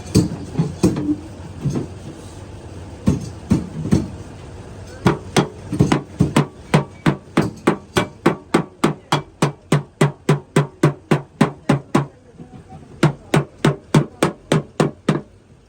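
Hammer blows on car body sheet metal during denting repair: a few scattered strikes, then a steady run of about three blows a second, a short pause, and a last run of blows near the end.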